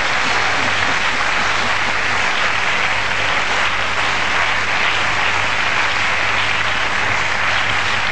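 Studio audience applauding steadily throughout.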